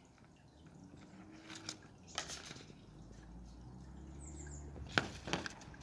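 Light clicks and rustles of a cardboard phone box and its paper insert being handled, with two sharper clicks about five seconds in. A faint low hum builds from about halfway, and a brief high chirp sounds just before the sharp clicks.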